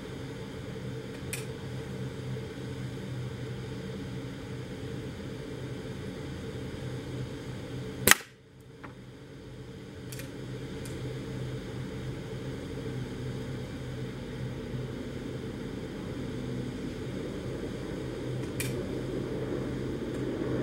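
A single air rifle shot about eight seconds in, one sharp crack, heard over a steady low background hum.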